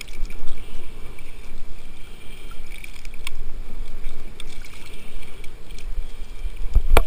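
Choppy water sloshing and splashing around a speargun-mounted camera at the surface, with a low rumbling buffet, scattered small clicks, and a heavy thump near the end.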